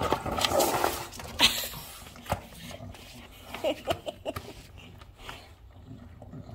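English bulldog chewing and mouthing a skateboard deck, with loud, noisy breathing in the first second, then scattered clicks and knocks as its teeth and paws work the board.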